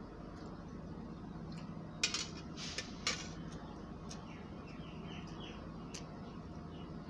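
A metal fork clinking and scraping against a stainless-steel plate, with a quick cluster of sharp clinks about two to three seconds in and a few lighter taps later.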